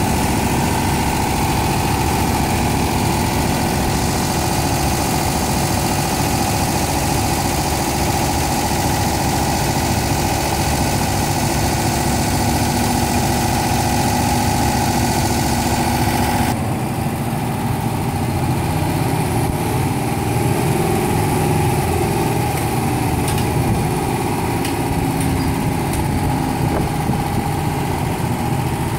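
Fahr M44 self-propelled combine harvester's engine running steadily as the machine moves slowly. About two-thirds of the way through, the sound changes abruptly and the higher hiss drops away.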